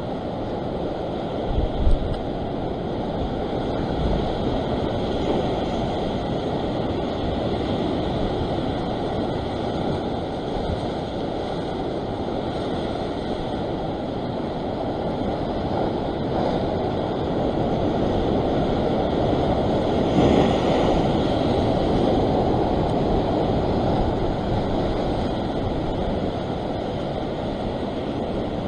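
Rough sea surf breaking and washing over a rock ledge, a steady rush that swells louder about twenty seconds in, with wind buffeting the microphone and a couple of low bumps about two seconds in.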